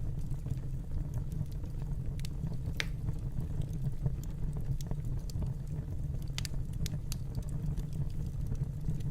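Fireplace fire burning: a steady low rumble with scattered sharp crackles and pops, one a little louder about three seconds in.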